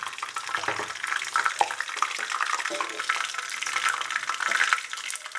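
Curry leaves and mustard seeds sizzling in hot oil in a kadai: a steady hiss with many small, irregular crackles and pops, the tempering (tadka) stage as the leaves brown.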